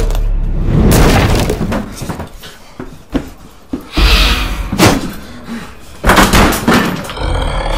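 Horror-film sound effects: several loud crashes and thuds, with something breaking, over a low rumble.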